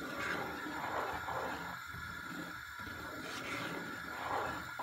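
Wooden spoon stirring semolina halva cooking in milk in a pot: repeated swishing and scraping strokes, about one a second, as the mixture begins to thicken.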